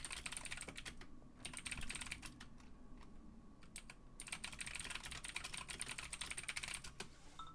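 Typing on a computer keyboard: three quick runs of rapid keystrokes with short pauses between them.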